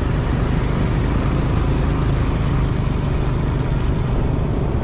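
Small vehicle engine running steadily while riding along, with a constant low rumble.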